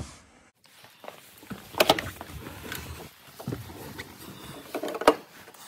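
Someone climbing into a Porsche 924's driver's seat: rustling of clothing against the seat, with a sharp knock about two seconds in and another near the end.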